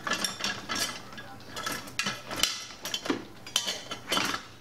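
Kitchen utensils clattering and clinking in a run of quick, irregular knocks as someone rummages through them for a spatula.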